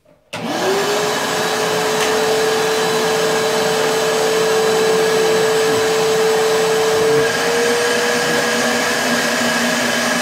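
A homemade vacuum former's vacuum motor switches on about a third of a second in, spins up quickly and then runs steadily and loud while the heated plastic sheet is drawn down over the molds on the perforated table. Its pitch steps up slightly about seven seconds in.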